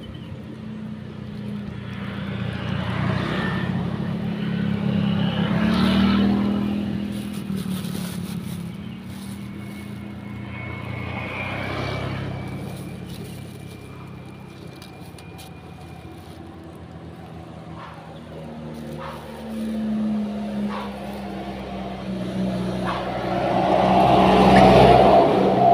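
Engines of motor vehicles passing by, swelling and fading away several times, the loudest pass near the end.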